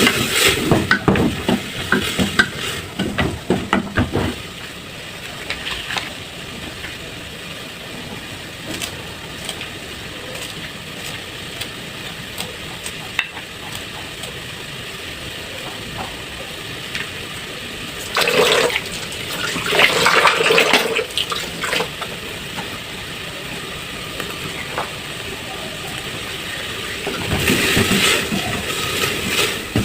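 Cooking in a kitchen: food sizzling in a pan while it is stirred, with scattered clinks of the utensil and a few louder clattering spells.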